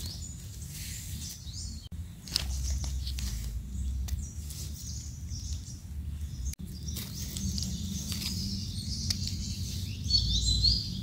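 Dry fallen leaves crackling and rustling as someone moves through the leaf litter, with birds chirping now and then and a clearer bird call near the end. A low steady rumble runs underneath.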